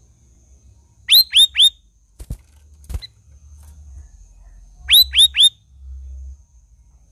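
Cucak rawis singing: two phrases of three quick upswept whistles each, about four seconds apart, with two short clicks between them.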